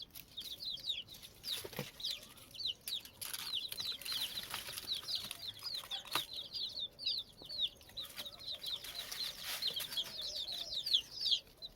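A group of young chicks peeping nonstop in fear: rapid, high-pitched, downward-sliding distress peeps overlapping one another.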